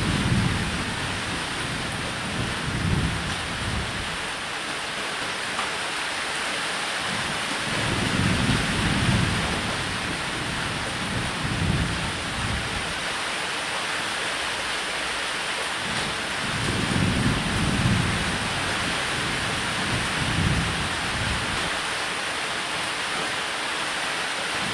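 Steady heavy rain falling on a roof, with low thunder rumbles that swell and fade every few seconds.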